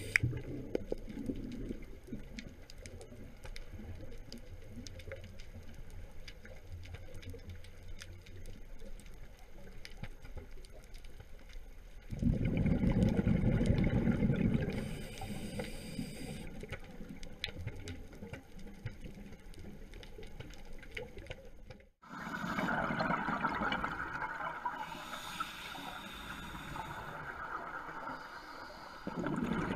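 Underwater recording of scuba regulator breathing: a loud, low, bubbly rumble of exhaled air about 12 seconds in and again near the end, with hissing inhalations in between, over steady water noise. The sound cuts out for a moment about two-thirds of the way through.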